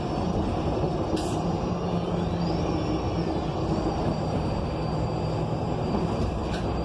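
Inside a 2020 ENC Axess BRT bus underway: steady drivetrain and road noise from its Cummins Westport L9N natural-gas engine and Voith transmission, with a high thin whine that rises in pitch and falls back in the middle. Two short hisses, one about a second in and one near the end.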